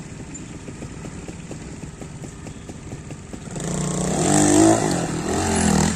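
Trials motorcycle engine idling with a steady low pulse, then revved hard about three and a half seconds in, its pitch rising and falling over several blips as the bike launches at a steep rock climb.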